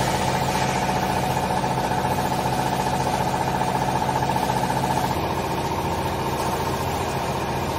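Hydraulic power unit of a vertical used-clothes baler running, a steady motor hum with a whine above it; the tone shifts slightly about five seconds in.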